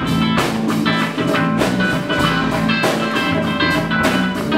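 A band playing rock music: guitar over a drum kit, with regular drum and cymbal hits.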